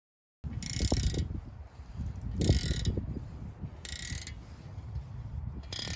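Mechanical ratcheting and metallic rasping in four strokes about a second and a half apart, over a low rumble.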